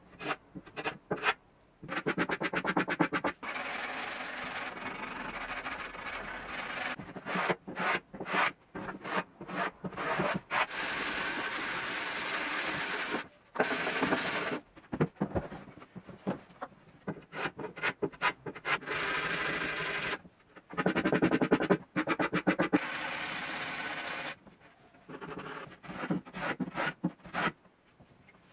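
Hand plane and sandpaper worked along the edge of a plywood panel: quick repeated rasping strokes, in runs broken by short pauses.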